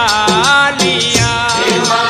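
Instrumental break in a Gujarati garba devotional song: a lead melody with bending, wavering notes over a steady percussion beat.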